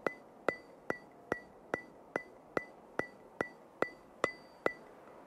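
Outro music: a steady ticking beat of sharp clicks, about two and a half a second, each with a short high ping, stopping near the end.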